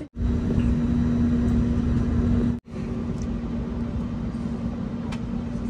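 Airliner cabin noise: a steady low rumble of engines and air with a constant hum. It breaks off sharply at the start and again about two and a half seconds in, and the first stretch is louder.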